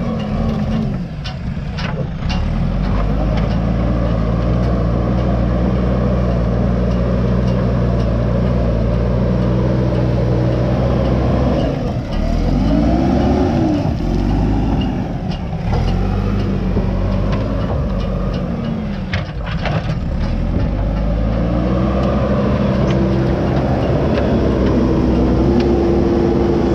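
JCB 3DX backhoe loader's diesel engine running loud and steady, its revs rising and falling several times as the hydraulic buckets are worked. A few sharp knocks of earth and stones break in.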